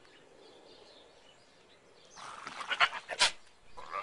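A goat bleating: a loud run of calls starting about two seconds in, with two sharp peaks, then a shorter call near the end.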